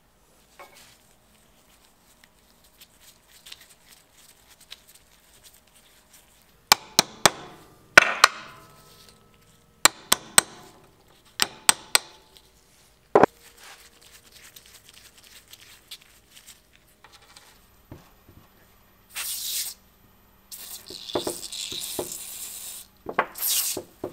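About ten sharp metal-on-metal hammer taps in quick groups of two or three, some ringing briefly, as a steel hammer drives a bicycle pivot pin out of its bushing on a vise anvil. Near the end an aerosol can hisses in several spray bursts.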